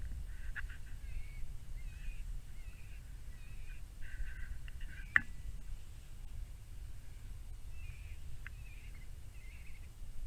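Electronic predator caller playing a faint, wavering distress call in broken squeals that come and go. A sharp click about five seconds in is the loudest sound.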